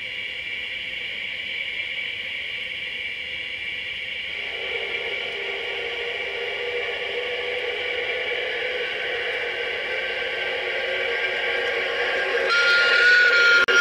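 LGB G-scale model trains in snow: a steady hiss, joined about four seconds in by the running noise of an approaching model locomotive that grows louder as the red Rhaetian Railway electric locomotive passes. A short, steady, high whistle sounds near the end.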